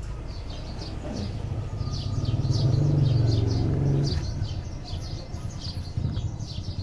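Small birds chirping in quick, short, falling notes over and over. A low droning hum swells in the background from a second or two in and fades away after about four seconds.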